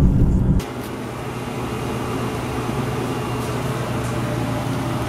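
Car road rumble for the first half second, then a sudden cut to a steady whooshing of fan or blower noise in a small tiled room.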